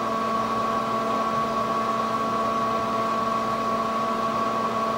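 Room ventilation fan running: a steady hum with a constant high whine.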